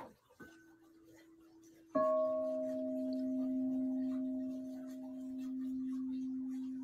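Frosted quartz crystal singing bowls struck with a wooden mallet: a soft note about half a second in, then a louder, lower bowl struck about two seconds in that rings on steadily with fainter overtones above it.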